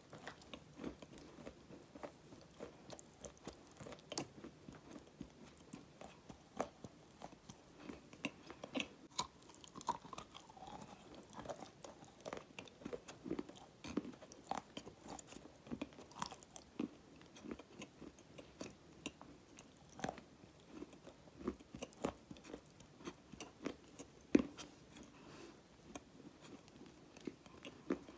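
Close-up wet mouth sounds: licking and biting on a dark stone-like chunk and chewing, heard as irregular soft clicks, smacks and crunches.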